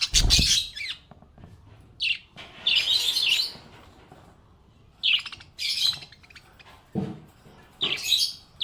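Small pet parrot chirping and chattering in short, buzzy bursts, each under a second, with pauses of about a second between them. A couple of the bursts come with a low thud.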